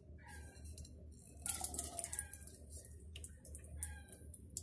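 Spiced beaten egg being poured into hot soybean oil in a frying pan, sizzling with faint, irregular crackles that start about a second and a half in.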